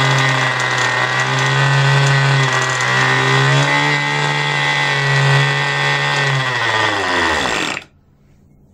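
Cox .049 model engine running as a diesel, driving a small generator at a steady high speed, then slowing with a falling pitch and stopping about eight seconds in.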